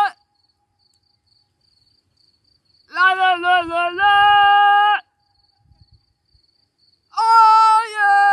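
A woman's loud, long yells, each held at a steady pitch for about two seconds: one wavers at first and then holds, about three seconds in, and another starts about seven seconds in.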